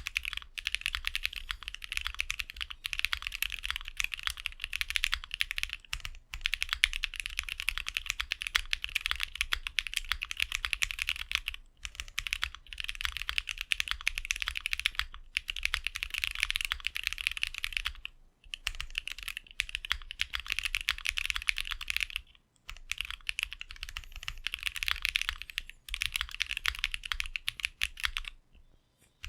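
Steady fast typing on a Bakeneko 60 custom mechanical keyboard: lubed and filmed AEBoards Snag switches in a POM plate on a gummy O-ring mount, with PBT keycaps. The keystrokes come in quick runs broken by a few short pauses, the longest about a second near the end.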